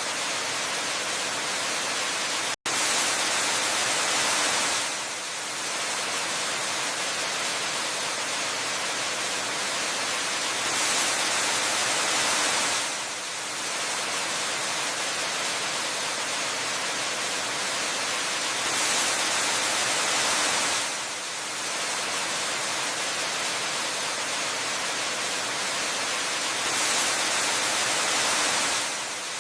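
Waterfall rushing as a steady hiss of falling water, swelling slightly about every eight seconds, with a split-second dropout near the start.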